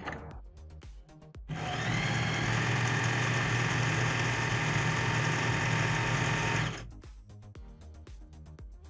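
Usha Janome Dream Stitch electric sewing machine running steadily, sewing its widest zigzag stitch (pattern F). It starts about a second and a half in and stops about five seconds later.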